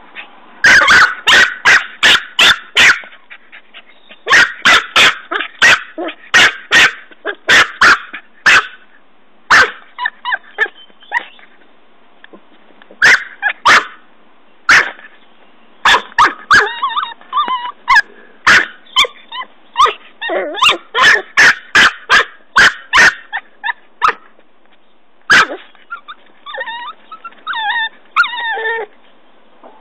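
Norfolk Terrier puppy digging in soil, with bursts of loud, sharp scrapes and knocks about three a second. In the second half come short yips and growls in between.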